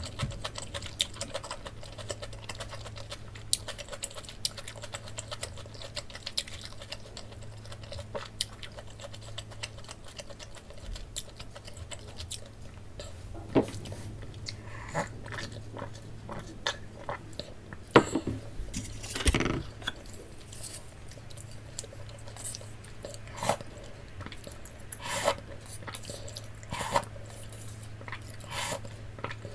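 Close-up chewing and crunching of crisp breaded, fried pork cutlet (tonkatsu), a run of small crackles with a few louder bites, over a faint steady low hum.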